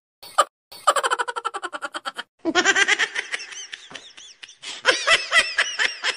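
Women laughing in quick ha-ha-ha bursts, with a short break about two seconds in, after which several voices laugh and giggle together, louder and overlapping.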